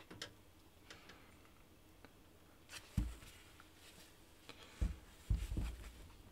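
Heckler & Koch MR308 rifle being handled and shifted on a workbench: scattered light clicks and a few dull knocks, the loudest about three seconds in and again around five seconds in.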